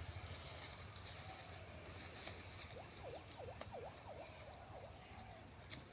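Faint outdoor background with a low steady rumble and scattered soft clicks, and a quick run of about five dipping chirps, a bird's call, around the middle.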